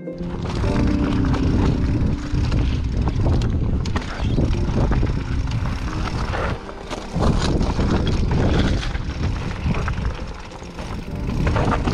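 Mountain bike riding over rough ground: wind rumbling heavily on the microphone, with the bike rattling and knocking over stones.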